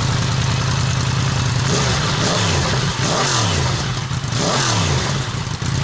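2016 Yamaha MT-10's crossplane inline-four, the engine from the R1, idling through its standard exhaust and blipped three times, each rev rising and falling in pitch. It sounds not too bad for a standard exhaust.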